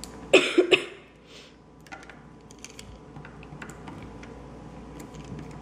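Small clicks and taps of a small screwdriver and stiff wires being worked into a screw terminal block, with a short louder handling noise about half a second in.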